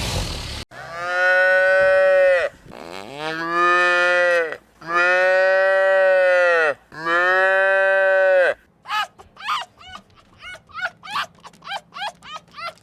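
Cattle mooing: four long calls in a row, each rising and then falling in pitch. After them, from about two-thirds of the way in, a fast run of short high-pitched yelps, two or three a second.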